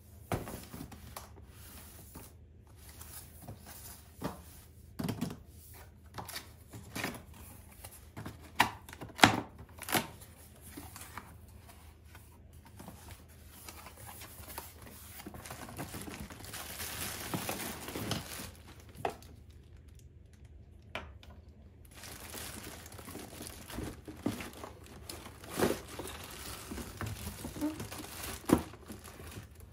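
Cardboard box and plastic wrapping being handled in an unboxing: flaps rustling and tearing, with several sharp knocks of cardboard, the loudest about a third of the way in. A longer stretch of rustling comes around the middle, and near the end the plastic bag around the appliance crinkles as it is lifted out.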